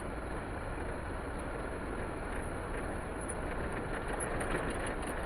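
Steady road and engine noise inside a vehicle's cabin as it drives slowly through city streets.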